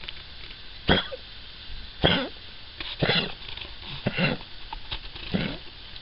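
Cavalier King Charles Spaniel coughing repeatedly, about five coughs roughly a second apart. It is a heart cough from mitral valve disease.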